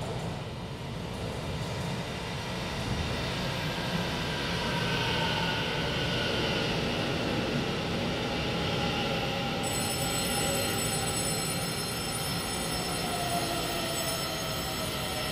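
Taiwan Railway EMU900 electric commuter train pulling into the platform. It grows louder over the first few seconds as it comes alongside, with several whining tones that slide down in pitch as it slows.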